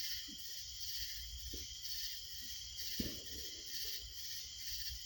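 Insects chirring in a steady, pulsing chorus, with a light knock about three seconds in.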